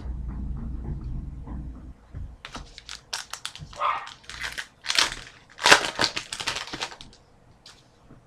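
Foil trading-card pack wrapper being crinkled and torn open, a dense run of irregular crackles after a low rumble of handling.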